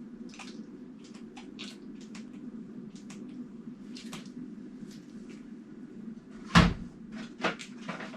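Light clicks and knocks of laundry being loaded into a tumble washer, over a steady low hum, with a loud thump about six and a half seconds in and a smaller one a second later, like the washer's door or lid being shut.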